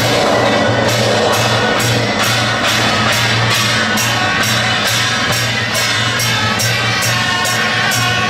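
Loud procession music: a steady beat of drum and cymbal strikes, about two and a half a second, under sustained melody tones.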